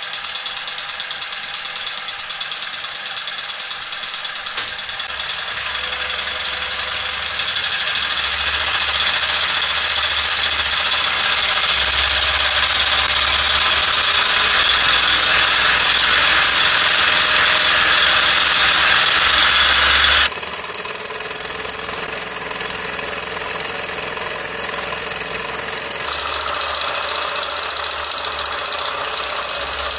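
Electric sewing machine running fast on about 400 V, far over its rated 100–220 V, its mechanism clattering rapidly. It gets louder about seven seconds in, then drops back suddenly about twenty seconds in and runs on at the lower level.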